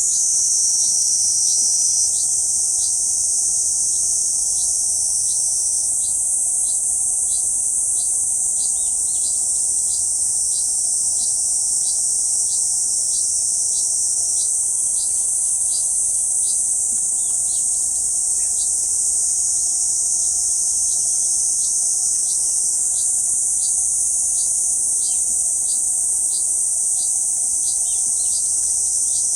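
Kuroiwa niinii cicada (Platypleura kuroiwae) singing: a continuous, shrill high-pitched buzz that drops slightly in pitch and rises again several times. Faint regular ticks run under it, about two a second.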